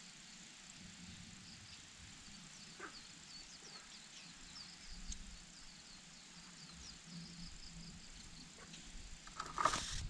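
Faint, rapid, high-pitched chirping of small birds over a low rumble, with a sudden loud noise near the end.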